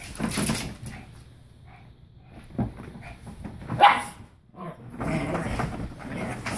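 Lhasa Apso barking in rough play: one short, sharp bark about four seconds in, between stretches of scuffling on the bedding.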